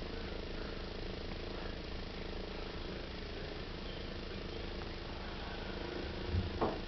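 A steady low mechanical hum. Near the end comes a short thump, then a brief voice-like sound that rises and falls in pitch.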